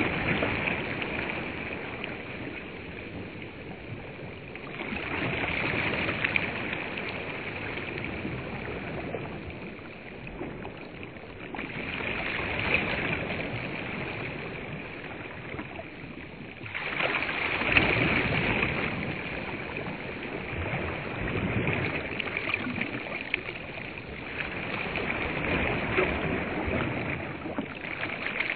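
Small waves of a large freshwater reservoir washing onto a sandy shore, a louder surge of splash and hiss every five or six seconds.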